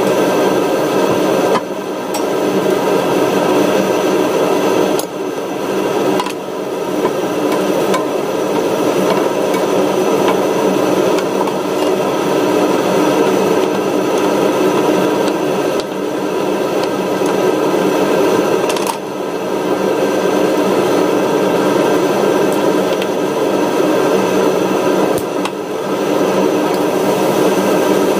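Vegetables and egg sizzling in a nonstick frying pan while a wooden spatula stirs them, over a steady mechanical hum with a faint whine that runs throughout, dipping briefly a few times.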